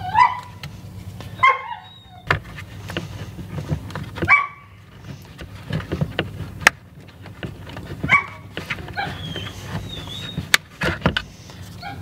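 A dog barking several short times, mixed with sharp clicks and taps of hands working wire connectors and a plastic dash panel.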